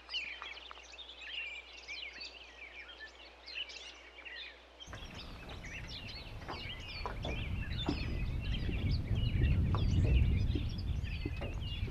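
Many small birds singing and chirping, a dense chorus of short high calls and trills. About five seconds in a low rumble joins them and grows louder.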